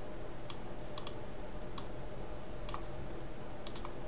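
Computer mouse button clicks, several short sharp clicks at irregular intervals, over a faint steady hum.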